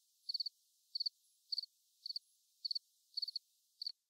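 A cricket chirping: short high chirps of two to four quick pulses each, a little under two a second. It cuts off abruptly near the end.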